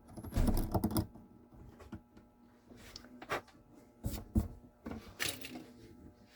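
Objects being handled: a quick flurry of knocks and rustles about half a second in, then a few separate sharp knocks and clicks.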